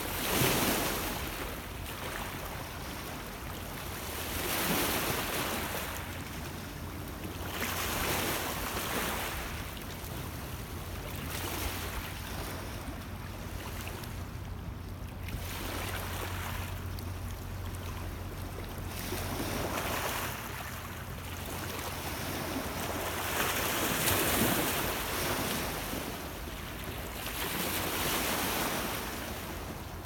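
Small lake waves washing in over a rocky cobble shore, swelling and ebbing every few seconds, over a steady low rumble of wind.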